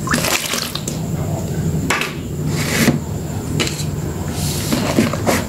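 Soaked soap and a sponge being squeezed and squished in thick lather by gloved hands in a steel bowl: wet squelching and foam crackle in bursts, one every second or so.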